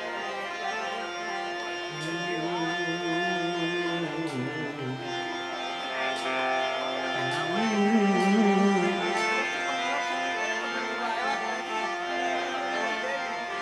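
Indian folk music with tabla over steady held instrumental tones, with sharp high ticks about once a second. Twice, a low wavering melodic line comes in.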